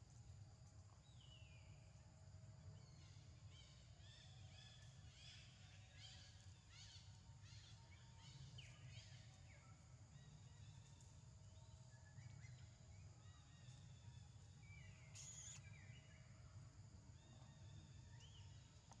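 Quiet outdoor ambience: a run of short, falling bird chirps, thickest a few seconds in, over a steady high whine and a low hum.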